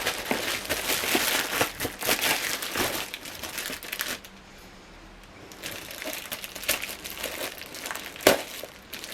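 Taped packaging being handled and pulled open, crinkling and rustling. It eases off for a second or so around the middle, and there is a sharp snap or click near the end.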